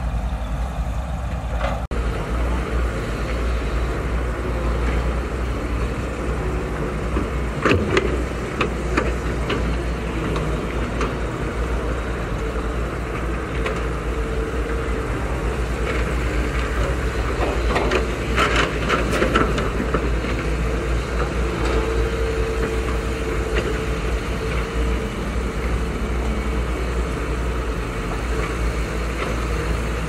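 Caterpillar hydraulic excavators' diesel engines running steadily under load, with sharp clanks of bucket and rock about eight seconds in and again around eighteen to twenty seconds in.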